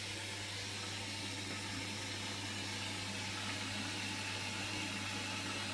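Hotpoint washing machine running mid-cycle: a steady low hum under an even hiss.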